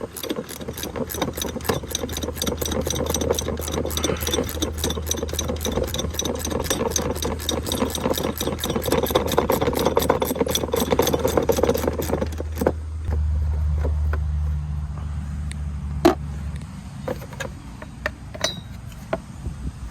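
A power driver running with a rapid, even rattle for about twelve seconds while loosening the bolts on a riding mower's deck, stopping abruptly; a low hum lingers a few seconds longer and a single sharp click follows.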